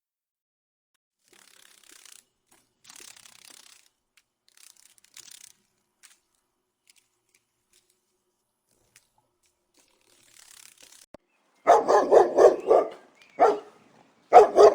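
Faint scattered noises, then near the end a dog barks in quick runs of sharp yaps, loud and in rapid succession.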